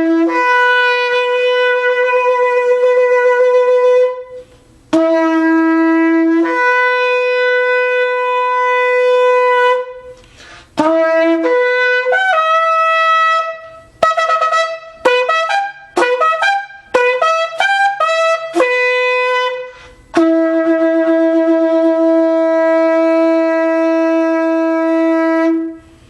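A long Yemenite shofar, about 45 inches, with a mouthpiece carved to trumpet-mouthpiece size, blown loudly. Two long blasts each jump up from a lower note to a higher one. A run of short, quick notes follows in the middle, and a final long note is held steady near the end.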